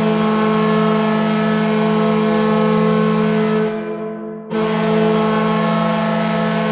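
New Jersey Devils hockey goal horn blowing: one long steady blast that fades out about four seconds in, followed half a second later by a second long blast.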